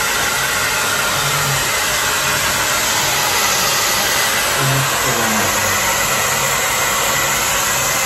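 Handheld hair dryer blowing steadily.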